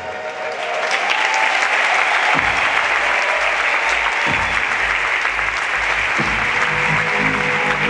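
Audience applause, building about a second in and then holding steady. Underneath it, music with a deep, booming drum hit about every two seconds.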